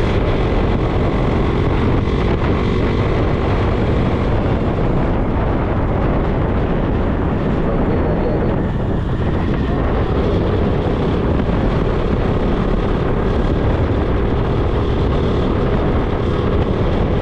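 A motorcycle riding at a steady speed: wind rush on the microphone over a steadily running engine.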